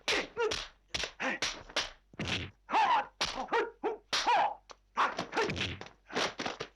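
Kung fu film fight sound effects: a rapid run of punch and kick impacts, several a second, mixed with the fighters' shouts and grunts.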